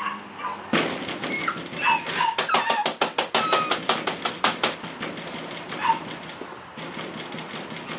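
Cavalier King Charles Spaniel puppies whimpering and giving short high yips. There is a fast run of sharp clicks in the middle, about two to five seconds in.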